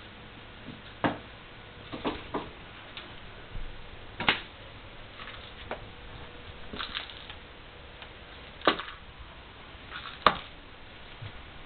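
A cat's rattle ball, stuck to one of its claws, rattling and knocking as the cat walks. It gives sharp clacks and short rattles at irregular gaps, about seven loud ones.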